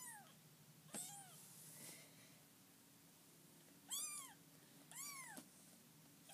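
One-week-old kitten mewing: four short, high mews, each rising then falling in pitch. One comes right at the start, one about a second in, and two more about four and five seconds in.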